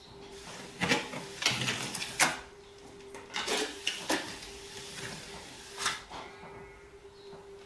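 A plastering trowel scraping and knocking as render is worked onto a wall: about six short, sudden scrapes and taps spread over several seconds, with a faint steady hum underneath.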